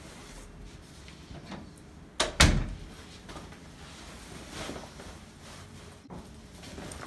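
A door closing: a sharp click and then a heavy thud about two seconds in, followed by a few softer knocks and shuffles.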